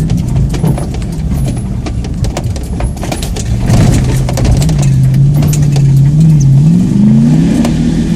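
Ford Bronco engine pulling under load off-road, its pitch climbing near the end as it revs, over a constant clatter of small knocks and rattles as the truck bounces over rough ground.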